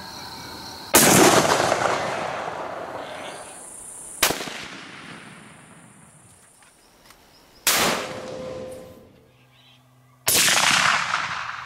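Four hunting-rifle shots at chital deer, the first about a second in and the rest roughly every three seconds. Each is a sudden crack followed by a rolling echo that fades over a second or two; the second shot's echo is the shortest.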